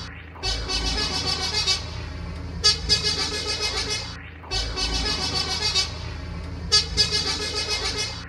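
A horn-like tone sounding four times, each blast about a second and a half long and starting roughly every two seconds, over a steady low drone.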